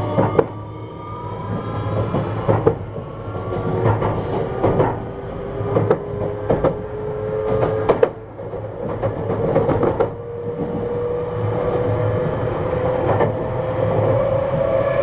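JR West 321 series electric train heard from inside its motor car: the Toshiba inverter and traction motors give several steady tones that rise slowly in pitch as the train picks up speed. The wheels click sharply over rail joints about a dozen times, at uneven spacing.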